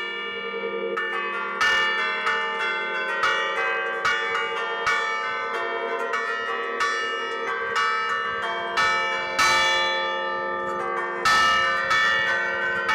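A peal of church bells played from a keyboard in the Bergamasque 'suono a tastiera' style: quick strikes about two a second pick out a tune, each note ringing on under the next.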